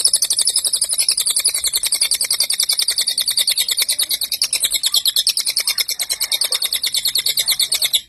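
A cililin singing a fast, unbroken run of high, rapid-fire notes, about ten a second, the rapid 'nembak' style that keepers prize. It starts and stops abruptly.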